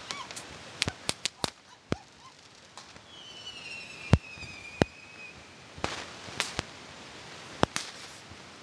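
New Year's firecrackers and fireworks going off around the neighbourhood: many sharp bangs at irregular intervals, some close and loud, others fainter. About three seconds in, a whistling firework sounds for about two seconds, its pitch gliding down.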